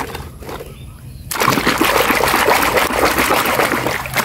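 Muddy water splashing and sloshing in a basin as a plastic toy truck is swished and scrubbed in it. The splashing starts suddenly about a second in and then keeps going.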